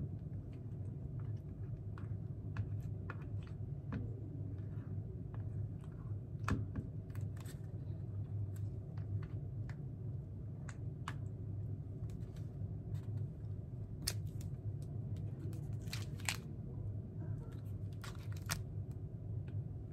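A plastic spoon clicking and scraping in a small plastic cup of yogurt, with the foil lid crinkling now and then, as someone eats. The light clicks come scattered throughout, a few louder ones in the last few seconds, over a steady low hum.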